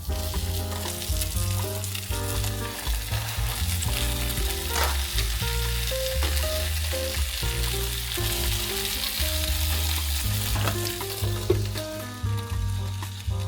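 Food sizzling as it fries in a pan, with stirring, over background music with held notes. The sizzle eases off near the end.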